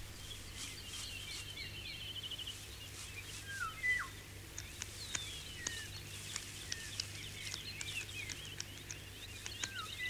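Small birds chirping and twittering, with a few short down-slurred whistles (the loudest a little under four seconds in, another near the end) and scattered light ticks, over a low steady hum.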